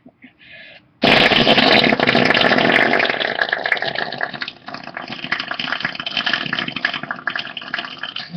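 A long, wet, sputtering fart noise. It starts suddenly about a second in, is loudest at first and eases off toward the end.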